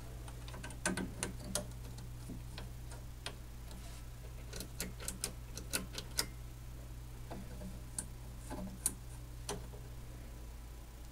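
Irregular small clicks and taps from hands and a wire clip working the knobs and swung-out control panel of a 1973 RCA XL-100 colour television, in a few bunches, over a steady low hum.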